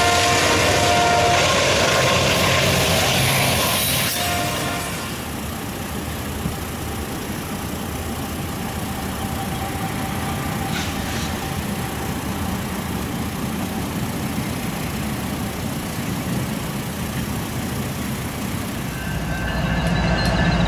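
Freight train horn sounding a chord of several tones, then the rumble and rolling clatter of a BNSF double-stack intermodal train passing close by. This gives way to a quieter, more distant train with a faint horn. Near the end another diesel locomotive's horn sounds over the low rumble of its engine.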